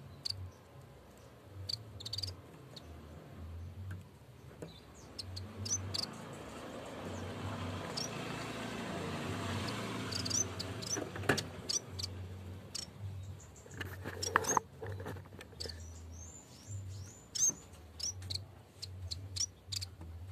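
Cikrak bambu (yellow-bellied warbler) calling in short, high-pitched chirps and trills, repeated at irregular intervals. This is the loud call the bird uses to challenge a rival. A low hum comes and goes underneath, and a rushing noise swells up in the middle.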